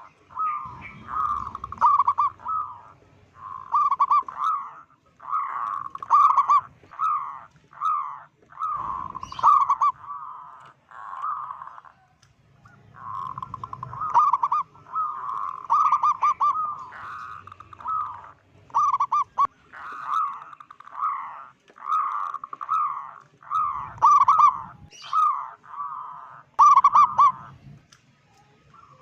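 Zebra dove (perkutut) cooing over and over in rapid trilled phrases of about a second each, with a short break about halfway through. It is a strong-voiced local bird in full song.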